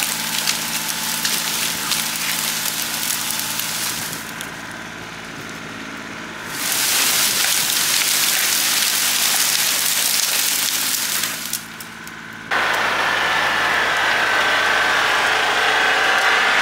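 John Deere 790 compact tractor's three-cylinder diesel engine running with a Bush Hog rotary cutter working through brush, a steady engine hum under a wide hiss. The sound drops for about two seconds about four seconds in and again briefly a little past halfway, then comes back with a higher whine on top.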